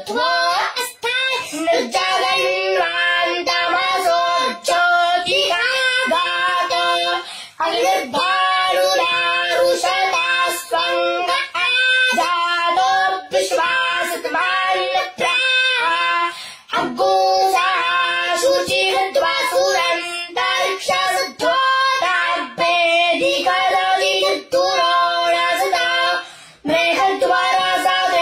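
A young boy chanting Vedic mantras in Sanskrit, a continuous recitation held on a few steady pitches, with short breaks for breath every several seconds.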